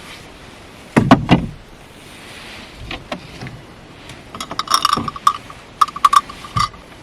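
Handling noises: a few heavy knocks about a second in, then a run of sharp clicks and metallic clinks with a ringing tone over the second half.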